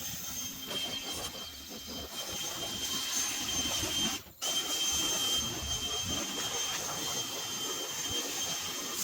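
Leaf blower running steadily, a rushing hiss with a thin high whine, blowing crop dust off a combine. The sound drops out for an instant a little past the middle, then carries on.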